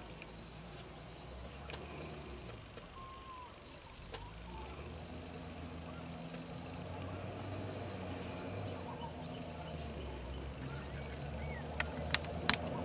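Steady high-pitched insect chorus, with a minivan's engine running low underneath and growing a little louder in the second half. A few faint bird chirps come through, and a few sharp clicks sound near the end.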